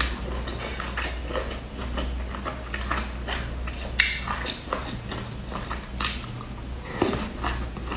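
Close-up eating sounds of a woman biting and chewing a sauce-soaked steamed bun: an irregular run of wet mouth clicks and smacks, with sharper sounds about four seconds in and again near seven seconds.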